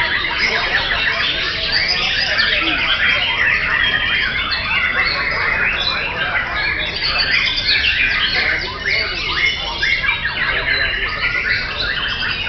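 Many caged white-rumped shamas (murai batu) singing at once: a dense, continuous tangle of overlapping song phrases and calls.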